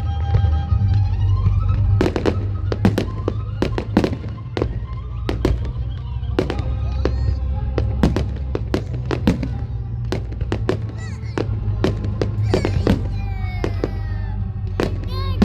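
Fireworks display: a rapid run of sharp firework bangs, two or three a second, over a steady low rumble, with music playing alongside.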